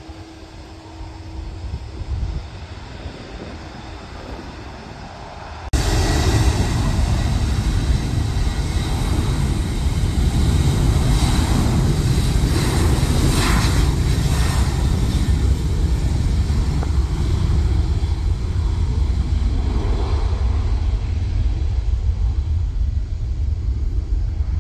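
Jet engines of a departing Boeing 737-800 (CFM56-7B turbofans): a loud, steady rumble with a thin whine, which comes in suddenly about six seconds in. Before that, a fainter jet rumble from another 737-800 rolling out after landing.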